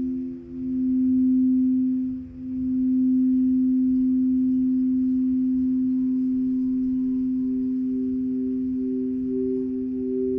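Frosted quartz crystal singing bowls ringing with deep, steady tones. The ring dips twice in the first couple of seconds and then sustains. From about halfway, a second, higher bowl swells in with a pulsing waver.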